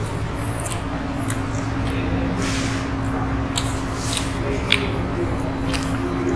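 Chewing and biting into toasted grilled sandwiches, with a few sharp crunches or clicks, the sharpest about two-thirds of the way through, over a steady low hum.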